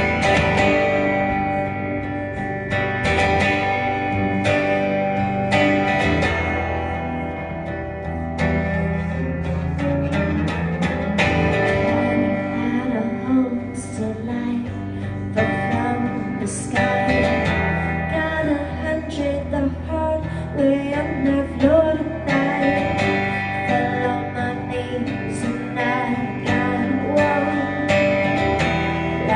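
Live country music: strummed acoustic guitar with a singing voice.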